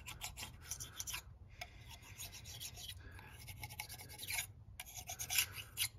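Razor blade scraping over the aluminium intake-port gasket face of a Mercedes OM642 diesel cylinder head, held at a shallow angle, in short, irregular strokes.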